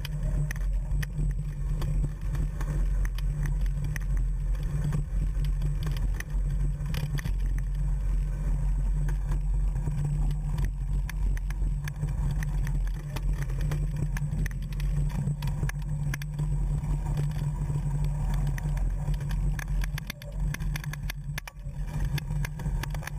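Mountain bike descending rough dirt single track, heard through a seat-post-mounted GoPro: a steady low rumble of wind and vibration with frequent small rattles and knocks from the bike over the rocks, easing briefly about twenty seconds in.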